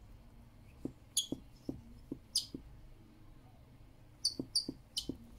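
Dog squeezing a small squeaky toy ball in its mouth, giving short, sharp high squeaks with soft knocks: a pair a little after one second, one more about a second later, then a quick run of four near the end.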